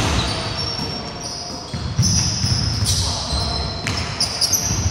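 A basketball bouncing on a wooden indoor court, several sharp thuds, with brief high-pitched squeaks of sneakers on the wood floor during play.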